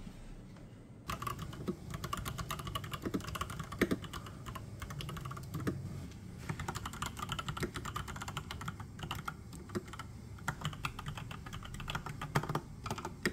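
Fast typing on a Robot WorkMate I full-size mechanical keyboard with red linear switches: a dense run of keystroke clicks that starts about a second in, with a few louder strokes among them.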